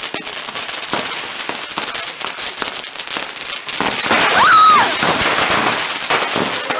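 Fireworks crackling: a dense, continuous run of rapid pops and snaps, with a brief high shout about four seconds in.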